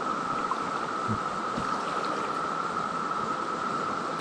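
Chorus of Brood X periodical (17-year) cicadas: a steady, unbroken high drone from many insects at once, over a soft wash of noise.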